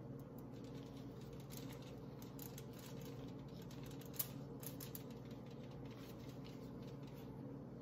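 Faint rustling and small ticks from gloved hands laying pie crust pieces over a metal muffin tin, with one sharper click about four seconds in. A steady low hum runs underneath.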